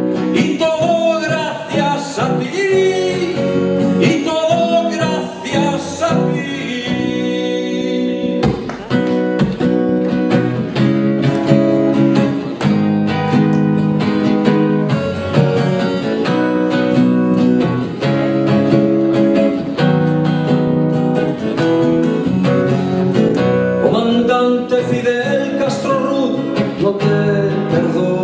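Acoustic guitar strumming chords, with a voice singing a wavering melody over it for the first several seconds and again near the end.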